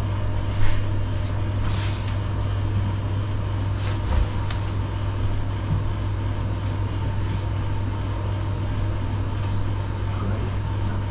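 Steady low machinery hum, with a few light clicks and rustles from hands working in the cabinet wiring.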